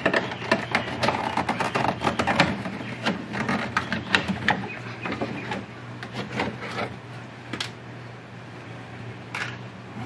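Quick clicks, taps and rattles of plastic interior trim being worked by hand around the inside door handle of a Chevy Silverado door panel. They are busiest in the first half and thin out later, over a low steady hum.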